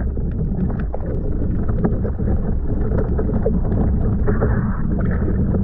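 Muffled underwater rumble and crackle as heard through an action camera below the surface, steady throughout, with many small clicks scattered through it.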